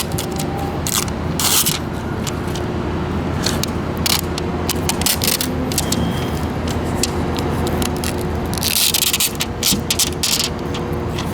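Scraping and peeling at hardened windshield-repair resin on a phone's glass screen: a run of short scratchy scrapes, with one longer scrape about nine seconds in, over a steady low rumble.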